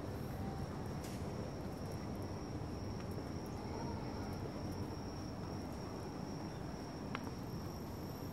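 Insects, crickets by the tags, singing one steady high-pitched trill over a low, even city-street rumble, with one sharp click about seven seconds in.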